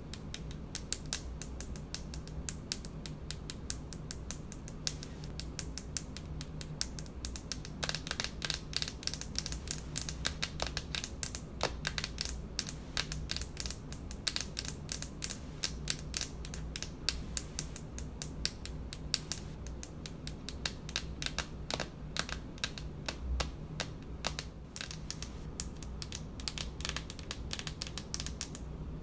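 Long polished fingernails tapping rapidly on a hard speckled countertop: a fast, continuous stream of light clicks, thickest in the middle stretch.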